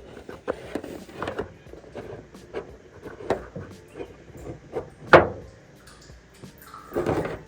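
Irregular knocks, clinks and clatters of tools and metal parts being handled on a motorcycle engine, with the loudest single knock about five seconds in.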